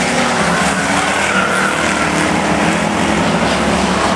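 Engines of several figure-8 race cars running hard together as the pack comes round, a loud steady mix of overlapping engine notes.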